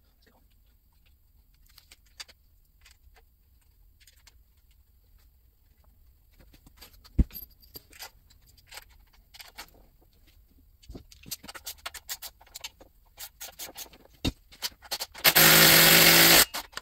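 Light metal clicks and taps as bolts are handled and set into the aluminium valve body of a 4L60E transmission, a little busier a few seconds before the end. Near the end a small power tool runs loudly for about a second.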